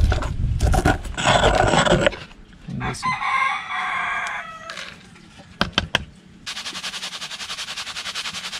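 Stone mortar and pestle grinding burnt shell into lime powder, then a rooster crows once about three seconds in, its call falling away at the end. From about six and a half seconds a plastic sieve is shaken in a fast, even rhythm as the shell powder is sifted.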